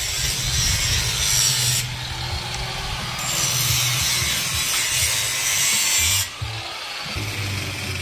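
Power grinder grinding metal in two long passes. The grinding eases to a quieter run about two seconds in, comes back after about three seconds, and drops again after about six seconds.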